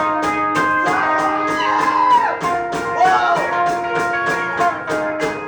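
Live rock band playing a song's instrumental intro: sustained guitar notes with some bent, sliding notes in the middle, over a steady ticking beat of about four a second.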